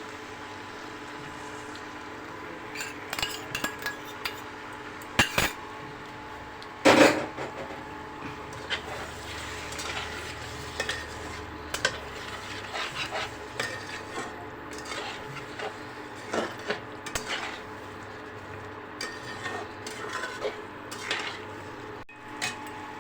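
A spoon clinks and scrapes against a bowl while yogurt is whisked, in irregular taps with a couple of louder knocks about five and seven seconds in. A steady low hum runs underneath.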